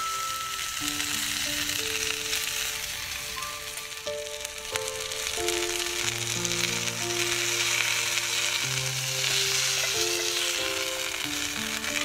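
Chicken pieces sizzling in a hot iron frying pan, a dense steady hiss, with a few light clicks of tongs against metal. Soft background music of held notes plays along.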